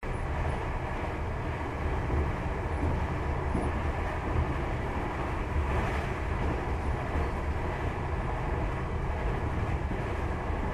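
A Japanese JR commuter train running, heard from inside the passenger car: a steady low rumble with rolling noise from the wheels and track.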